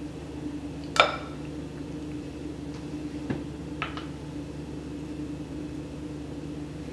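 A single sharp clink of kitchenware about a second in, ringing briefly, followed by two faint ticks, over a steady low hum.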